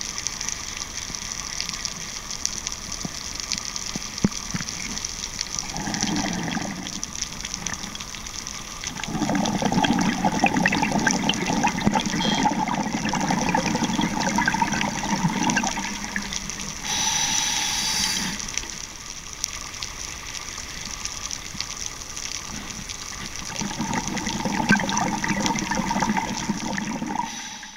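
Underwater sound of a scuba diver's regulator breathing: gushing rushes of exhaled bubbles, a short one about six seconds in, a long one from about nine to sixteen seconds and another near the end, with a brief higher hiss between them, over a steady hiss.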